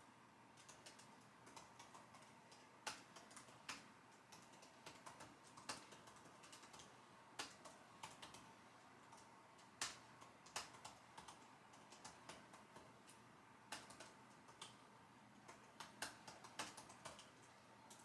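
Typing on a computer keyboard: a continuous, irregular patter of keystrokes, with a handful of louder single strokes standing out every second or two.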